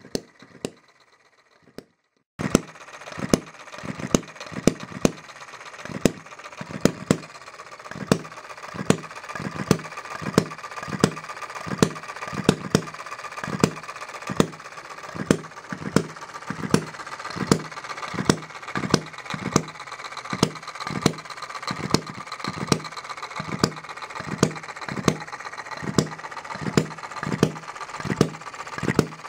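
Quarter-scale single-cylinder hit-and-miss engine (Philip Duclos design, 1-inch bore and stroke, spark-ignited, on Coleman lantern fuel) running unloaded. It starts about two seconds in and fires in sharp, evenly spaced pops about every two-thirds of a second over a steady mechanical clatter.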